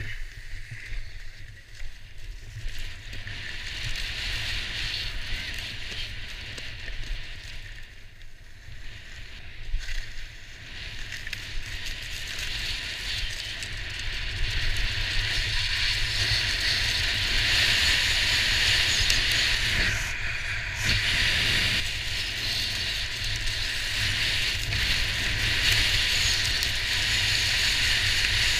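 Skis running fast over groomed snow: a steady hiss from the skis with wind rushing over the action camera's microphone. It grows louder about halfway through.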